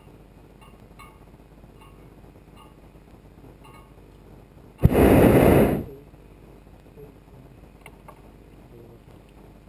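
Hot air balloon propane burner fired in a single blast of about a second, starting sharply about five seconds in and then dying away.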